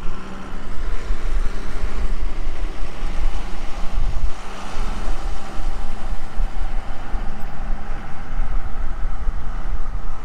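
A large engine running steadily, under a heavy, fluctuating low rumble.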